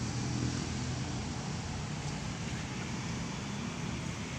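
Steady outdoor background noise with a faint low rumble of distant road traffic.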